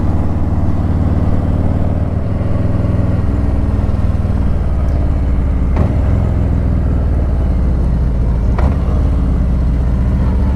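Harley-Davidson Ultra Limited's V-twin engine running under way on a climbing mountain road, its low note shifting a couple of seconds in as the throttle changes, with two brief sharp ticks later on.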